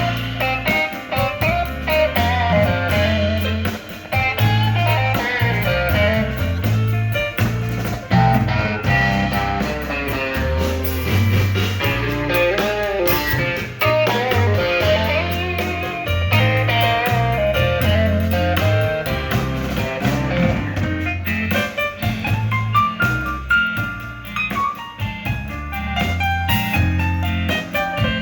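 Blues band playing live, with guitar over a stepping bass line and a drum kit.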